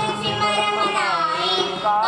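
A boy singing Sikh devotional kirtan to his own harmonium, with tabla accompaniment; he draws out a sung note that bends down in pitch near the end, over the harmonium's steady chord.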